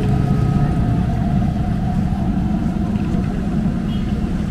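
Street traffic noise: a vehicle engine running steadily close by, under a constant low rumble of traffic.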